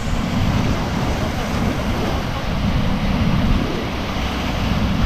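Rushing river water of whitewater rapids, a steady loud roar, with wind buffeting the microphone.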